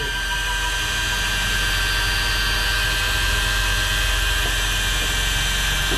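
Electric fishing reel's motor whining steadily as it winds in line, with a steady low hum underneath.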